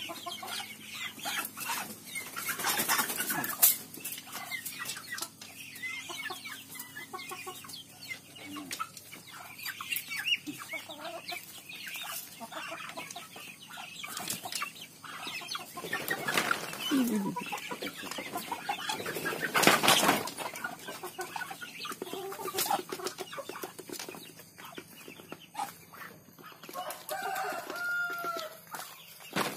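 A flock of chickens and Muscovy ducks crowding in at feeding time: hens clucking, wings flapping and short scuffling knocks, with a few clearer clucking calls near the end.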